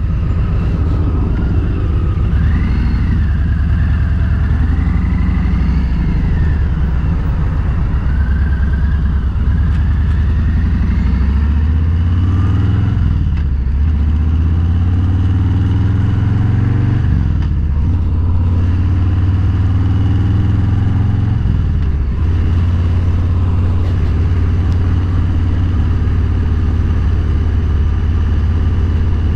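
Motorcycle engine running under way, its note dropping and climbing again several times as the rider eases off and opens the throttle. A faint wavering whine sits above it for the first ten seconds or so.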